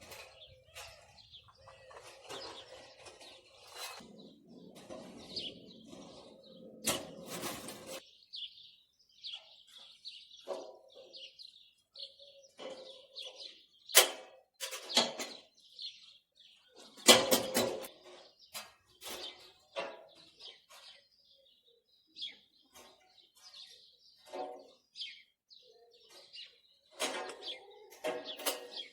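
Small birds chirping on and off, with scattered sharp knocks and clatter from work going on, two of them much louder than the rest about halfway through.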